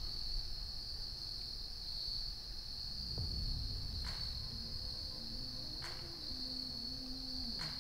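A steady, high-pitched chorus of insects singing in summer woods. There are three sharp clicks, the first about halfway in and the last near the end, and low held tones, likely background music, come in during the second half.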